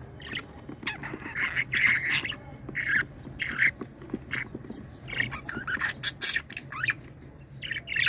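Budgerigars squawking: a busy run of short, harsh, raspy calls in quick clusters.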